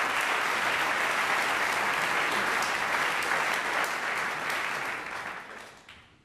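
Concert audience applauding, the applause dying away near the end.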